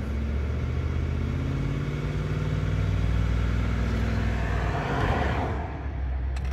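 Ford F-150's V8 engine, heard from inside the cab, pulling away from a stop and accelerating, its speed climbing steadily. The revs drop shortly before the end as the automatic transmission shifts up.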